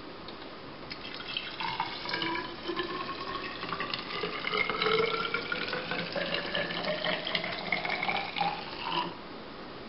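Soapy water poured in a thin stream into a tall, narrow cylinder, its pitch rising steadily as the cylinder fills. The pour begins about a second in and stops about a second before the end.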